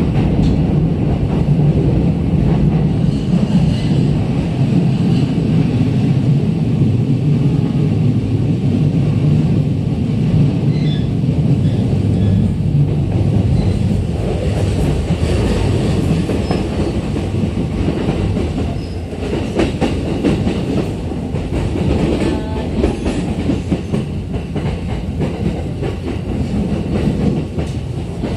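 Running noise inside a JR East E231 series electric commuter car: a steady rumble of the wheels on the rails and the car body. In the middle and later part it clatters over rail joints, and the rumble eases a little about two-thirds of the way through.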